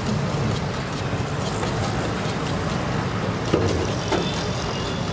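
Steady low rumbling background noise, with a few light clicks about three and a half to four seconds in, as a ladle stirs Maggi noodles in masala sauce in a small aluminium pan on a gas burner.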